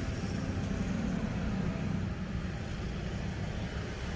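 Steady low rumble with a faint even hiss above it; no distinct events.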